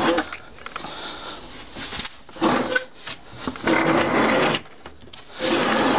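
The movable wooden table of a homemade circular saw bench being slid by hand, wood scraping and rumbling against wood in four strokes.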